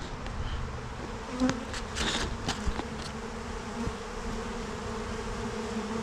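A honey bee swarm buzzing around an opened hive: a steady, even hum from thousands of wingbeats. A few light knocks come about two seconds in.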